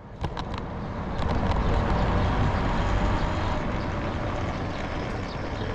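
Wind rushing over the microphone and road noise while a Talaria Sting R electric dirt bike is ridden. The noise swells up over the first second and then holds steady, with a few light clicks near the start.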